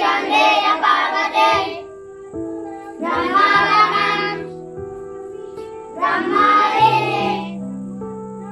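A prayer song sung by children's voices in three short phrases about three seconds apart, with held instrumental notes sounding between the phrases.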